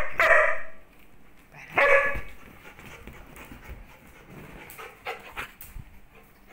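A dog barking to be let outside: two quick barks right at the start and another about two seconds in, then only faint sounds.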